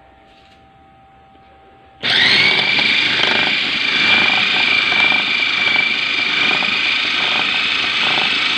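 Electric food chopper switched on about two seconds in: the motor spins up quickly and then runs steadily with a high whine as its blade minces raw chicken meat on a second grinding pass.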